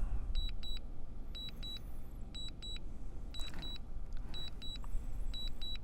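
Drone remote controller beeping: short high electronic beeps in pairs, about one pair a second, over a steady low rumble of wind on the microphone.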